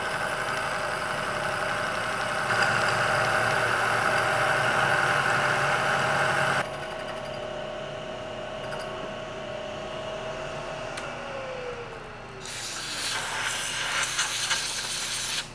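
Vertical milling machine driving a hole saw into a steel bicycle-frame tube: a steady motor whine with a rough cutting noise that is loudest for about four seconds. The cutting eases about six seconds in, and around eleven seconds the spindle winds down with a falling pitch. A rough rushing noise follows for about three seconds near the end.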